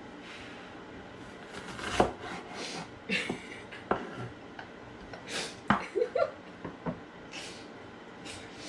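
Knife cutting onions on a cutting board: a handful of separate sharp knocks, a second or two apart, with short hissy sounds in between.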